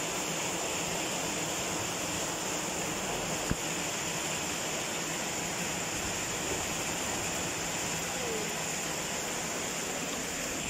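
Steady rain falling on a pond and wet ground, a constant hiss, with a single sharp click about three and a half seconds in.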